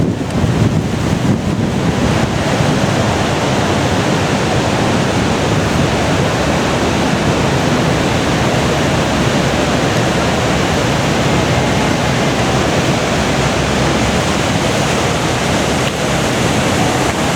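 Loud, steady rush of churning water below Niagara Falls, with wind buffeting the microphone.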